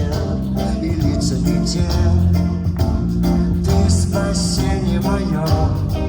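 Live band playing a pop song: guitar and bass over a steady drum beat, with a voice singing the melody.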